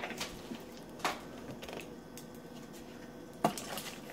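Plastic drink bottle being handled and its cap twisted: a few scattered clicks and crackles, the loudest about three and a half seconds in.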